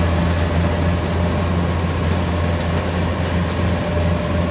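Kubota rice combine harvester's diesel engine running steadily, a constant low drone.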